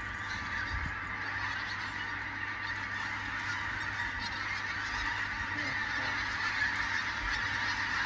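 A huge flock of pink-footed geese calling in flight overhead, a dense unbroken chorus of many overlapping honks, growing a little louder as more birds come over.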